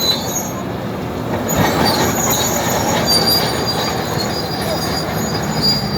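Komatsu D80A crawler bulldozer working: its six-cylinder, non-turbo diesel runs steadily under a high-pitched squealing from the steel tracks.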